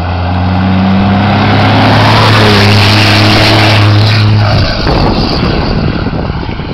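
1998 Dodge pickup's 12-valve Cummins diesel running hard at steady revs as the truck drives past, with a loud rush of tire and air noise swelling as it goes by; the engine note falls away about four and a half seconds in.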